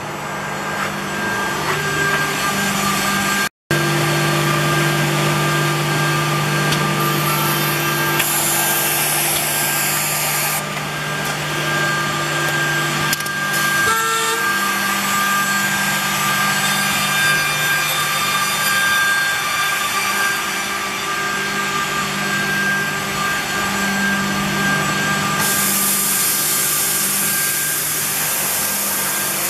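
A Nanxing MFB(Z)80 through-feed edge banding machine running, its motors humming steadily under a hiss that rises and falls as its cutting units work. The sound breaks off for a moment about three and a half seconds in.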